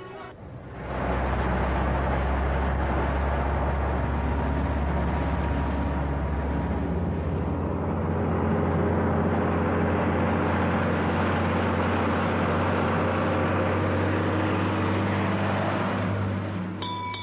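Motor vehicle engine running steadily as it drives, coming in about a second in and dropping away near the end.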